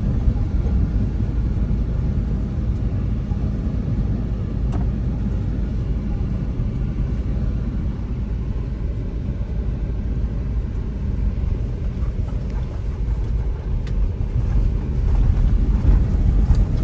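Steady low rumble of a car being driven, heard from inside the cabin, growing a little louder near the end.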